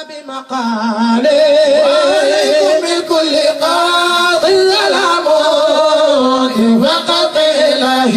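Music with a man singing in a chanting style, holding long wavering notes with ornaments; it comes in about a second in.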